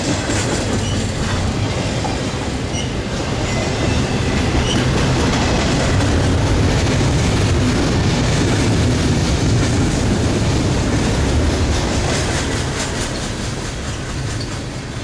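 Double-stack intermodal freight cars rolling past close by: a steady, loud rumble of steel wheels on rail with clicking from wheels crossing rail joints, easing slightly near the end.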